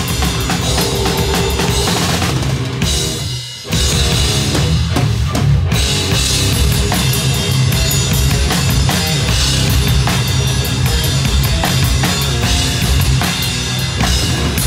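Death metal/crust band playing live, heard from right beside the drum kit, so the kick drum, snare and cymbals are loudest over the rest of the band. About three seconds in the music drops out for a moment, then the whole band crashes back in.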